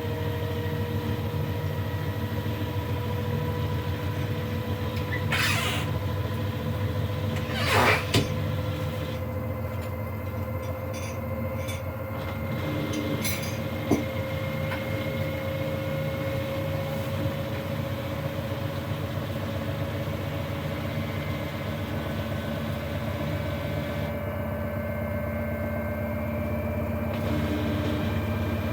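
LG F-12U2HCS2 front-loading washing machine in its spin cycle: a steady low hum with a motor tone that rises slowly. Several sharp knocks come through it, the loudest about eight seconds in. This is the knocking during spin that marks the machine as faulty.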